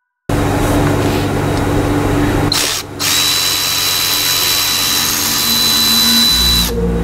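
Power tool motor running in two long runs with a short break about three seconds in; the second run carries a steady high whine.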